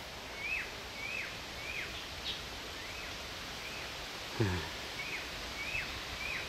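A bird repeats a short call, a quick up-and-down note, about eight times at an even pace of roughly one every two-thirds of a second, over a steady outdoor hiss. Just past the middle, a brief low sound drops in pitch.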